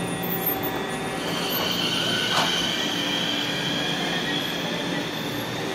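Centram low-floor tram (car 9001) rolling past at close range, its steel wheels squealing steadily at a high pitch on the rails from about a second in over a running rumble, with a sharp click about two and a half seconds in.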